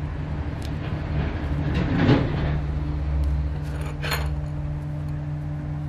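Hands pressing and rubbing a glued leather piece onto a canvas backing, giving soft rustling and handling noises, with a brief louder scrape about two seconds in and another near four seconds, over a steady low hum.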